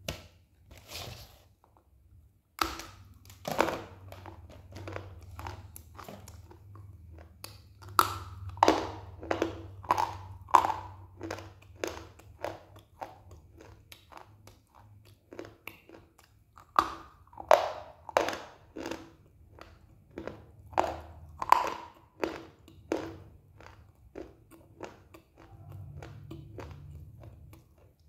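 A person biting off and chewing pieces of a hard white chalk-like stick: sharp, dry crunches in quick clusters, with quieter chewing between them.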